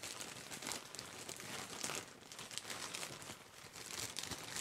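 A parcel mailer bag crinkling and rustling in irregular crackles as it is handled and opened.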